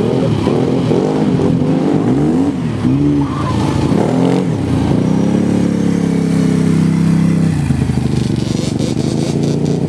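ATV engine revving up and down several times in quick succession, then held at a steady higher speed for a couple of seconds before the revs drop.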